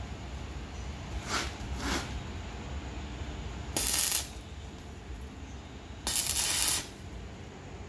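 Electric arc welder laying short tack welds on a steel frame of motorcycle sprockets and chain. There are two brief bursts of the arc, the first about four seconds in and the second, slightly longer one, near the end.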